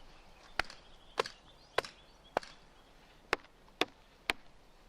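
Wood being chopped: seven sharp, even strikes about half a second apart, with a slightly longer gap before the fifth.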